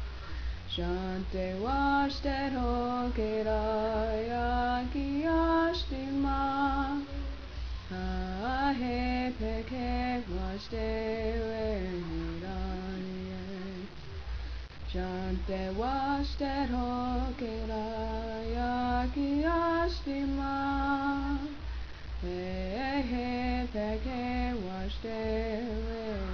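A sung vocal melody with long held notes and slides between them, over a steady low bass pulse.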